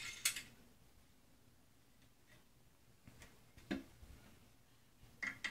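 A few sharp metallic clicks and knocks from the brass trombone's parts being handled and fitted together. The loudest cluster comes right at the start, with single clicks about three and a half seconds in and a quick pair near the end.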